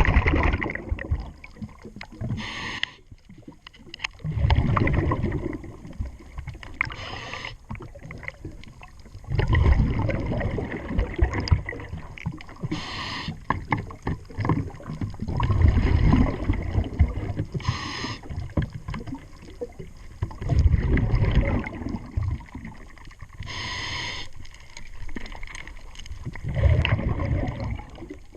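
A diver breathing through a scuba regulator underwater: a short hiss on each inhale, followed by a louder rumble of exhaled bubbles, about five breaths at a steady pace of one every five to six seconds.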